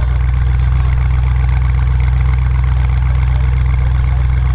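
Audi RS6 Avant C8's twin-turbo 4.0-litre V8 idling steadily through a decat Capristo exhaust with the particulate filter deleted, a loud, even, low-pitched idle.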